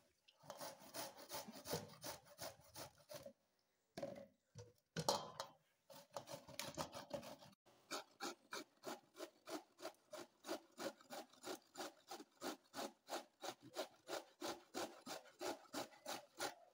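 Carrots grated by hand on a metal grater: scraping strokes, irregular at first, then a steady rhythm of about three strokes a second through the second half.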